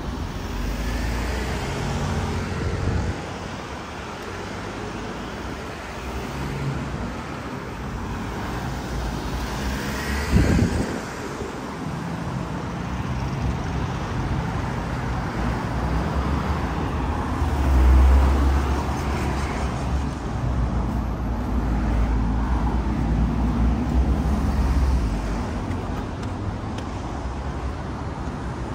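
Road traffic: motor vehicles running past on a street, with a steady noisy rumble throughout. There is a sharp knock about ten seconds in, and a heavier, deep engine rumble through much of the second half as a larger vehicle goes by.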